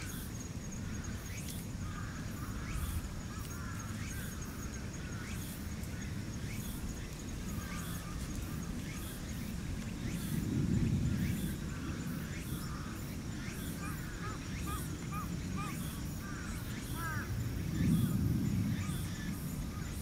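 Red Shiba Inu puppies about four weeks old squeaking and whimpering in short, high calls while they nurse and jostle at their mother's teats. A low rumble under them swells twice, about halfway through and near the end.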